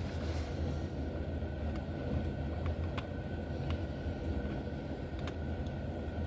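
Steady low background hum, with a few faint light clicks of small slot car parts being handled on the bench.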